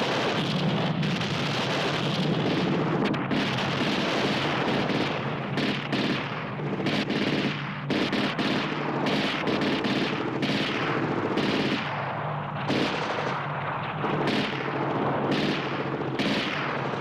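Dense battle sounds: rapid, overlapping gunfire from automatic weapons, mixed with explosions.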